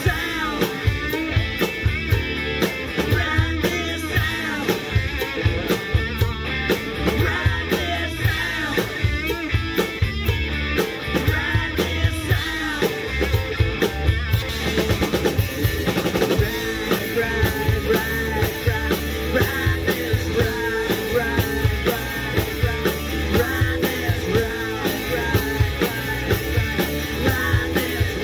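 A rock band playing live: electric guitar through an amplifier over a drum kit keeping a steady beat.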